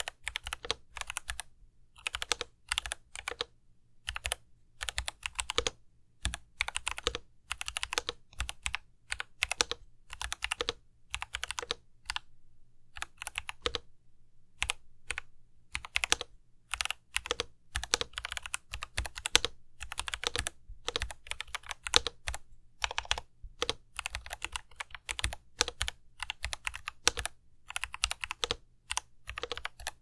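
Typing on an Aiguox GK83 custom mechanical keyboard fitted with Akko Jelly Blue switches and GMK-clone keycaps: rapid runs of key clacks in bursts, with short pauses between them.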